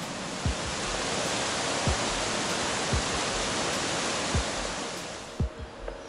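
Fast mountain stream rushing over rocks, a steady full rush of water that fades near the end, with footfalls thudding about once a second.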